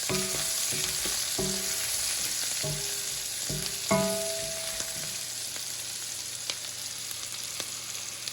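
Diced onion sizzling steadily in hot bacon drippings in a skillet. For the first five seconds a stirring utensil knocks against the pan with short ringing clanks, the loudest about four seconds in; after that only the sizzle goes on, with a few faint clicks.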